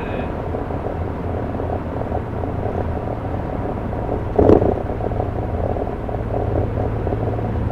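Inside the cabin of a Skoda Octavia 1.8 turbo cruising at motorway speed: a steady low exhaust drone over engine and road noise. It is the resonance that wrapping the rear muffler in exhaust wrap has not cured. A brief thump comes about four and a half seconds in.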